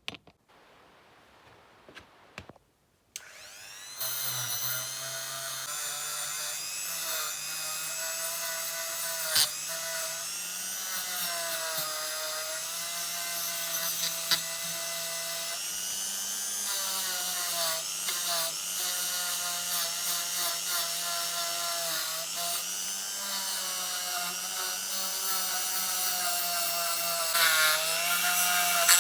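Handheld rotary multi-tool running at high speed, polishing and abrading a die-cast metal car body. It starts about three seconds in, and its whine dips in pitch and recovers again and again as the bit is pressed against the casting.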